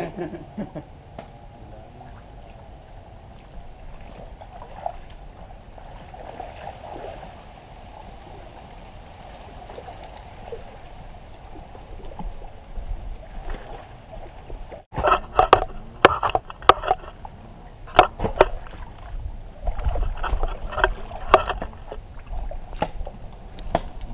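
Men wading through shallow muddy water: sloshing steps and splashes, with voices calling. The first half is faint. About halfway through it gets louder, with sharp splashes and nearby voices.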